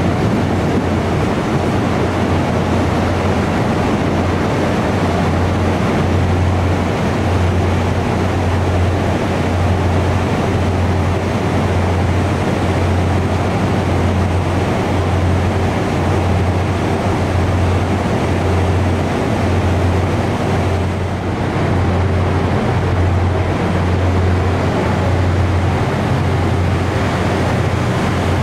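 Diesel-electric locomotive engine running with a deep, steady throb that swells and fades about once every second and a half, over a constant hum.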